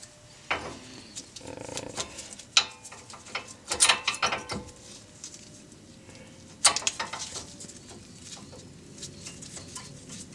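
New brake pads with metal backing plates clinking and scraping against the front caliper mounting bracket and its hardware clips as they are seated by hand. The sound is irregular light metallic clicks, with a few sharper clinks about two and a half, four and six and a half seconds in.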